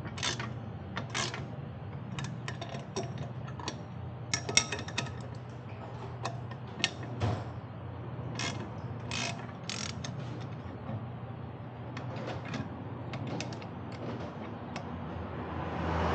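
Hand tools on metal: irregular sharp clicks and clinks, some in quick little runs, over a steady low hum.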